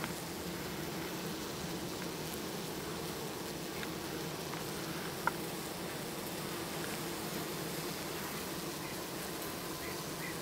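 Honeybees buzzing: a steady hum with a brief tick about five seconds in.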